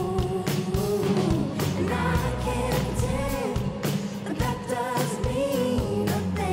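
Live pop/R&B music: a female lead singer with backing vocalists over a band with drums, her held notes wavering with vibrato.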